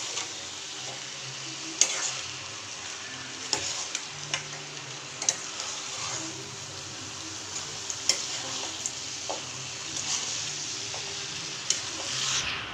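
Country chicken pieces sizzling steadily as they fry in a pan, stirred with a metal ladle that scrapes and clicks against the pan every second or two.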